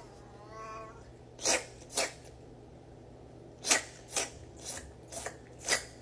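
Domestic tabby cat gives a short meow, then sneezes seven times in quick, sharp bursts: twice about a second and a half in, then five more about half a second apart in the second half.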